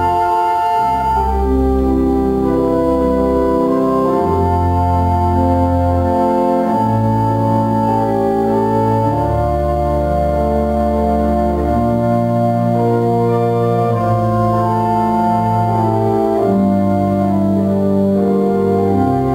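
Organ playing slow, sustained chords that change every second or two over held bass notes.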